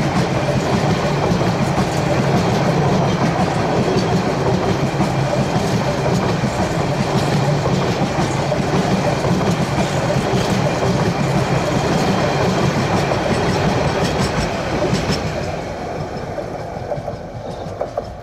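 Empty container flat wagons of a freight train rolling past, wheels clattering over the rail joints in a steady, loud run. About fifteen seconds in the noise begins to fade as the tail of the train passes and draws away.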